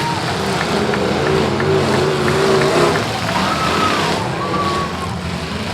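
Several demolition derby cars' engines revving hard together, their pitch rising and falling as the drivers work the throttle.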